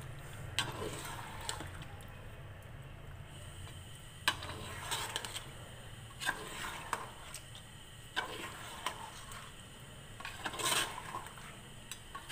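A spoon stirring thick chicken korma gravy in a pot, with wet squelching and irregular scrapes and knocks against the pot every second or so.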